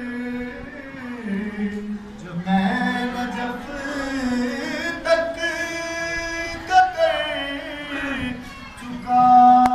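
A man singing a manqabat, an Urdu devotional praise poem for Imam Ali, into a microphone. He holds long notes that waver and bend in pitch.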